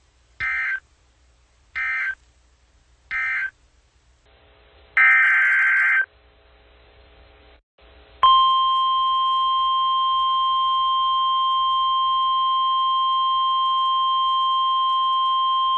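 Emergency Alert System data bursts: three short screeching SAME digital bursts about a second apart, typical of the end-of-message code, then a longer burst of header code about five seconds in. About eight seconds in, the NOAA Weather Radio warning alarm starts, one loud steady tone that holds.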